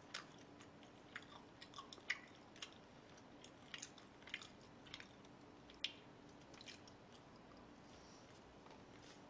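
Close-miked chewing of grilled meat: soft, irregular wet mouth clicks and smacks, most of them in the first six seconds, over a faint steady hum.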